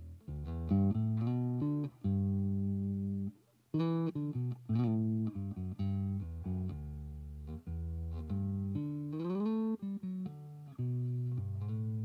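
1980 Yamaha PB-600 Pulser Bass electric bass played fingerstyle: a line of single plucked notes, a short break about three and a half seconds in, and a slide up in pitch around nine seconds in.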